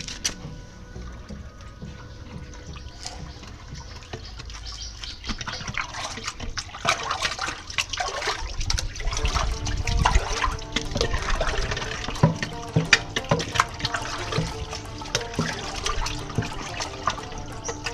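Wastewater gushing and splashing in a sewer drain channel, growing louder and busier about a third of the way in.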